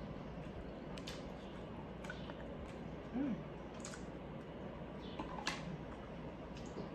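Close-miked eating sounds: a fork scooping mashed potatoes and a mouthful taken, heard as a few soft sharp clicks and mouth smacks spaced a second or so apart, with a brief hum about three seconds in.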